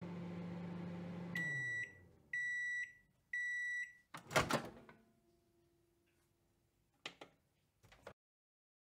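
Microwave oven running with a low hum that winds down, then three long beeps, about a second apart, signalling that the cooking time is up. A loud clunk follows as the door opens, then two small clicks.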